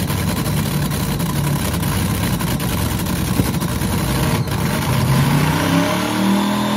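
Ford 427 SOHC "Cammer" V8 in a vintage dragster running on open exhaust headers, idling steadily and then revving up over the last couple of seconds.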